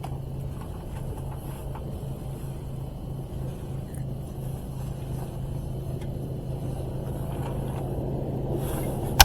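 A steady low motor hum over a low rumble, like a running engine. It ends in a sharp click, after which the hum stops abruptly.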